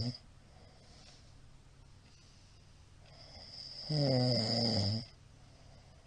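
A middle-aged man snoring in his sleep. One snore cuts off right at the start. Then the breath builds up into a loud snore of about a second, about four seconds in, that falls slightly in pitch.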